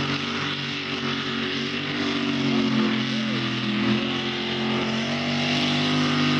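Pulling tractor's engine running hard at a steady pitch under heavy load as it drags the weight-transfer sled, getting a little louder near the end as it comes closer.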